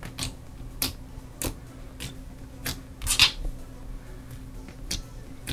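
Slime being pressed and stretched by hand, giving off irregular sticky clicks and pops, roughly one every half second to second, with a louder crackle a little past halfway.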